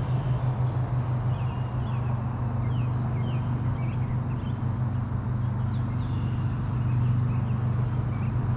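A steady low hum with songbirds chirping repeatedly over it.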